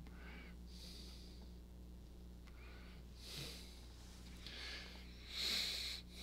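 A man breathing close to a microphone: several soft breaths in and out, the last one the loudest, over a steady low electrical hum.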